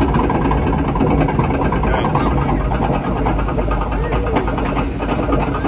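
Steady low mechanical rumble of a water-ride boat travelling along its elevated track, with a fine rattle over it.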